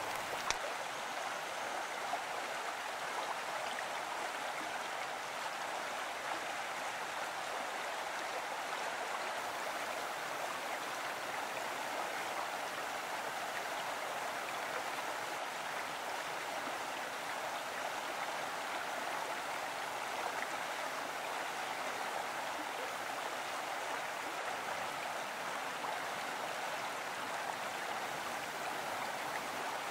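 Mountain stream running steadily, an even rushing of water, with one sharp click about half a second in.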